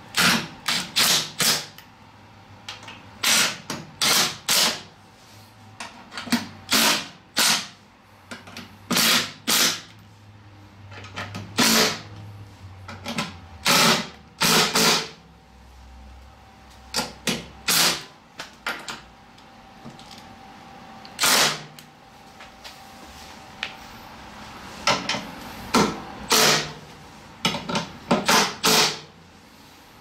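Makita cordless impact driver hammering in many short bursts of a second or less, with pauses between, as it runs bolts on a snowblower's sheet-metal side cover.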